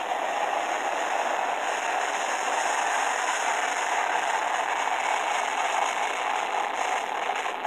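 Martinair Cargo MD-11F trijet's engines at takeoff thrust as the freighter rolls down the runway: a loud, steady jet noise. It is heard played back through a small screen's speaker and re-recorded, so it is thin, with no deep rumble.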